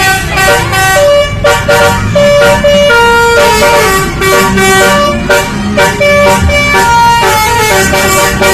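Indonesian bus 'telolet' basuri multi-tone air horn playing a tune: several horn notes sound together and step from pitch to pitch every fraction of a second, with brief breaks, over a low vehicle rumble.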